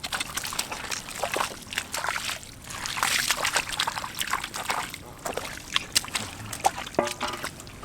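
Shallow water sloshing and splashing in quick, irregular splashes, with trickling between them.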